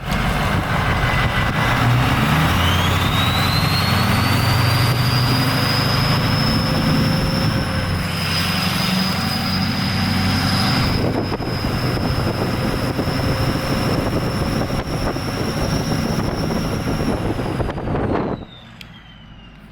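Ford 6.0 Powerstroke V8 turbo diesel fitted with a KC Stage 3 turbo, running loud under way. A high turbo whistle climbs steeply a few seconds in and holds steady over the engine rumble. Near the end it slides down in pitch as the engine sound drops away.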